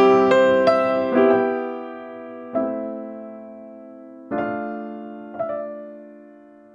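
Background piano music: slow, gentle notes struck one after another, each ringing on and fading, thinning out to a few sparse notes in the second half.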